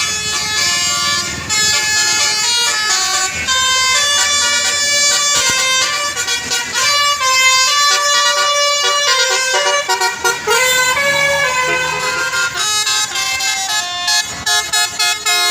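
Bus's Basuri multi-tone air horn playing a telolet melody: several horn tones sound together and step from pitch to pitch, loud and almost without a break, turning into short choppy blasts near the end.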